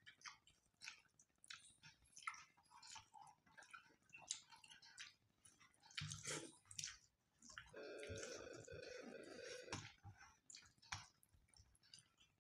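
Faint wet clicks and smacks of rice being mixed and eaten by hand, with chewing. An unidentified steady hum lasts about two seconds just past the middle.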